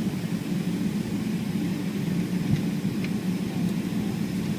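Steady low hum and rumble inside the cabin of a Boeing 777-300ER airliner, its engines running, with a small bump about halfway through.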